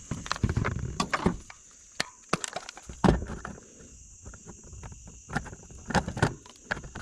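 Shrink wrap crinkling and tearing, with irregular clicks and knocks of a new plastic Wi-Fi trail camera being unwrapped and handled.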